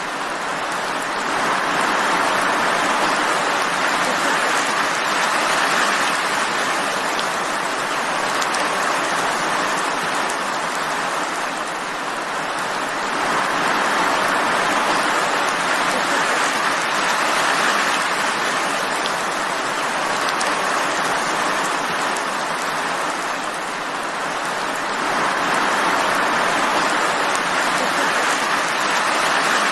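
Steady rainfall, a dense even hiss that slowly swells and eases about every twelve seconds.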